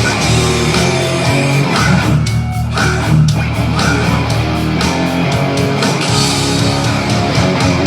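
Heavy metal music: distorted electric guitar over steady rock drums, played as an amateur garage cover.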